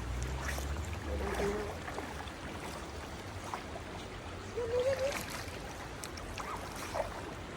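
Stream water running steadily, with two short, faint wavering calls, one about a second and a half in and one near the middle.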